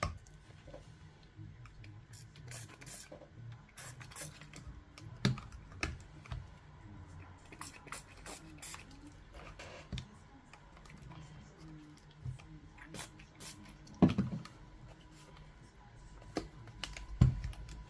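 Scattered small clicks, scrapes and taps of hands working on a Bose SoundLink Color II speaker's casing while prying it apart, with two louder knocks near the end.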